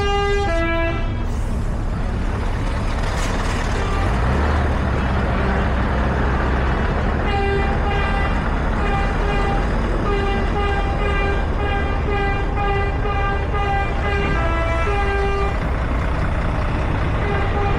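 Semi-truck air horns sound a long run of short blasts over the steady low rumble of passing diesel truck engines. An earlier horn blast dies away about a second in, and the rapid blasts start about seven seconds in and go on for some eight seconds.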